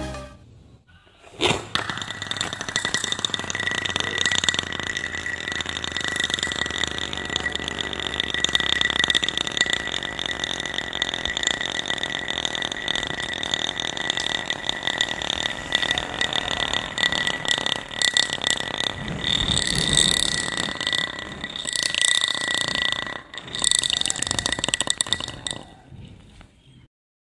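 Homemade bottle-cap spinning top whirring on its nail point against concrete, a steady scraping hum with a high whine. It turns uneven and rattly near the end as the top wobbles and tips.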